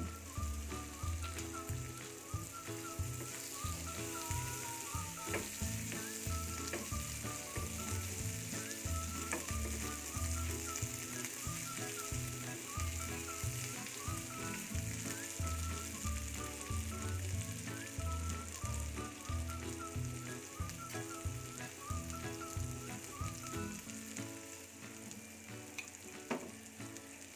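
Sliced onions, bay leaves and whole spices sizzling steadily in oil in a frying pan, with a silicone spatula stirring and scraping them now and then.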